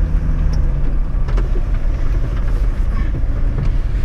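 Toyota LandCruiser 105-series engine running low and steady as the four-wheel drive crawls over a rutted dirt track, with a few faint knocks.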